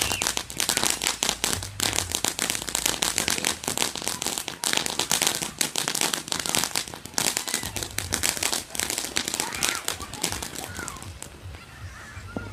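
Fireworks crackling: a dense, rapid run of sharp pops and snaps that goes on for about eleven seconds, then dies away near the end.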